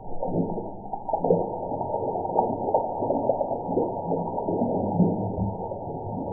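A tap-water stream pouring into an empty glass tumbler, splashing on the bottom of the glass, starting suddenly. It is played back slowed down with the slow-motion footage, so the splashing comes out low-pitched.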